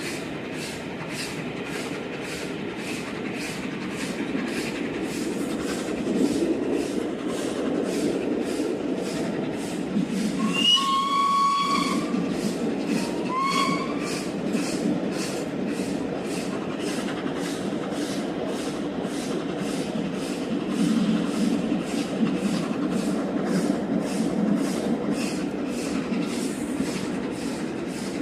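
Train hauled by the Peppercorn A1 steam locomotive Tornado running at speed, heard from the coach behind the engine: a steady rumble with a regular beat about twice a second. The locomotive's whistle sounds twice, a long blast about ten seconds in and a short one soon after.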